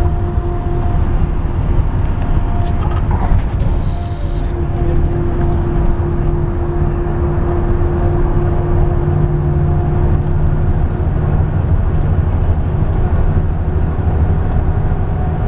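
Bus interior noise while driving: a steady low rumble of engine and road with a steady hum over it, and a brief rattle about three seconds in.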